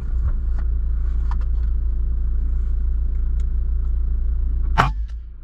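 A steady low rumble, with a few faint ticks. Near the end comes a single sharp crack: a PCP air rifle firing a slug.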